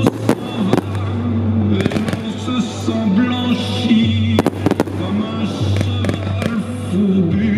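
Fireworks shells bursting with sharp bangs, several near the start, a cluster about two seconds in and another about four and a half seconds in, over music with held low notes and a wavering melody.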